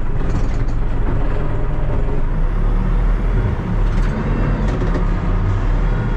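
Diesel engine of a TEREX TLB-815 backhoe loader running steadily: a loud, even, low drone.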